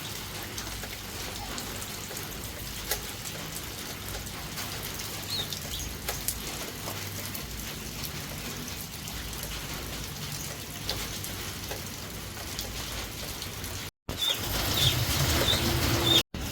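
Steady outdoor noise with scattered light ticks, and a few short high bird chirps about five seconds in and again near the end. The sound cuts out briefly twice near the end and is louder after the first cut.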